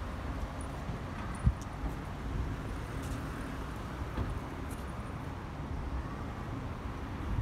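Steady hum of road traffic, with a brief low thump about a second and a half in.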